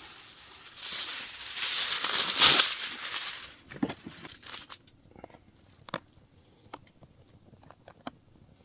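Rustling, crinkling handling noise for the first few seconds, loudest about two and a half seconds in, then scattered light clicks and taps.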